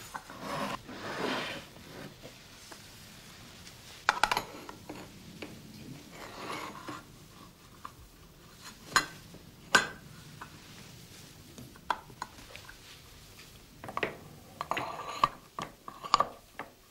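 A cloth rubbing on a tin can, then scattered sharp metallic clinks and knocks as the lidded tin can is slotted into a hand-operated can-sealing machine.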